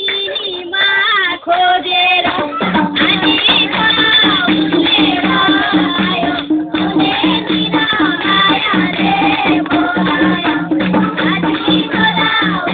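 Dohori, Nepali folk duet singing, with a steady drum and percussion beat that comes in about two seconds in.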